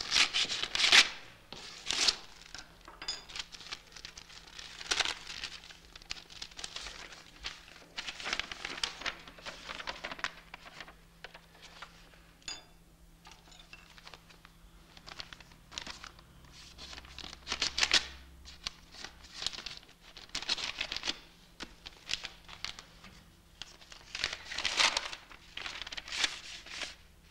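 A paper envelope being slit open with a letter opener and handled: paper rustling and tearing in short, irregular bursts.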